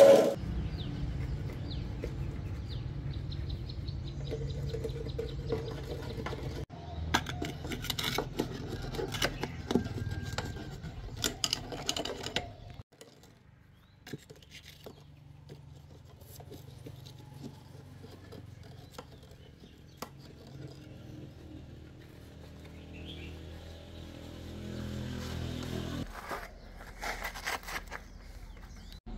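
Clinks, knocks and scraping from hand work on steel moulds and fresh concrete castings, pliers working in the cast openings, coming in several separate stretches over a steady low hum, with one loud knock at the very start.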